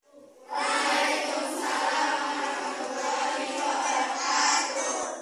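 Many voices singing together, steady and loud, starting about half a second in and stopping abruptly at the end.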